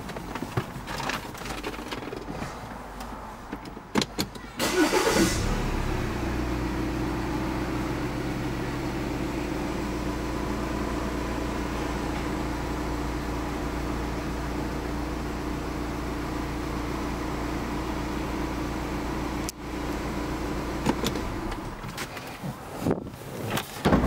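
Audi Q5 engine cranked and catching about five seconds in, then idling steadily for about a quarter of a minute before it is switched off near the end. Clicks and knocks of handling in the cabin come before the start and after the engine stops.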